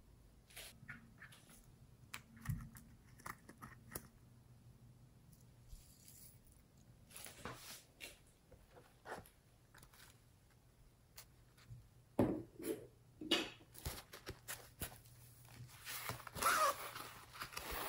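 Hands handling slime-making materials around glass dishes: scattered light clicks, taps and scrapes, a few heavier knocks about twelve to fourteen seconds in, and a close, crackly rustling near the end as a glittery felt sheet is handled.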